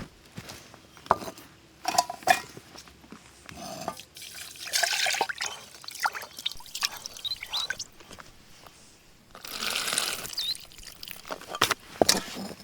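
Water splashing or pouring in two bursts of about a second each, among scattered sharp knocks and clicks.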